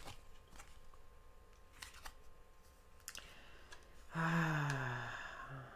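A few faint light clicks and taps, then about four seconds in a woman's long hummed "hmm", falling in pitch, with a short murmur after it.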